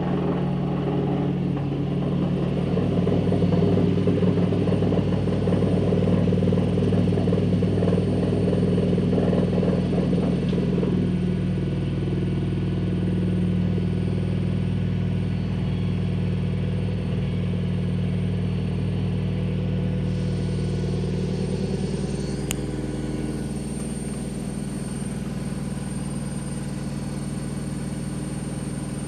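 Telefunken (Vestel-built) washing machine on its spin cycle, making a loud, steady mechanical hum. A rattle rides on it for the first ten seconds or so, and the noise settles a little about twenty-three seconds in.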